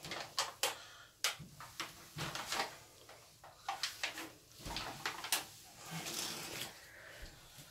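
Scattered knocks and rustling as a large reticulated python is lifted out of its wooden vivarium, its body sliding over the paper lining and bumping against the enclosure.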